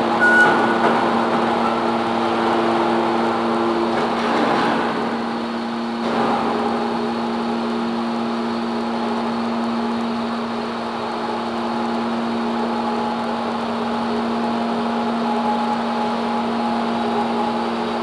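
The hydraulic power unit of a 200-tonne scrap metal baler running steadily, a constant multi-tone machine hum from its 37 kW electric motor and pump. A few brief metallic clatters in the first five seconds.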